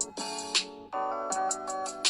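Background music with a steady beat: sustained chords under regular bright percussion ticks.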